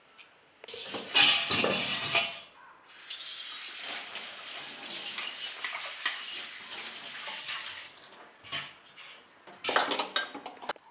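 A knife and a steel bowl clinking and scraping while boiled potatoes are cut into pieces. A long stretch of steady rushing noise, like running water, fills the middle, and there is a burst of clatter near the end.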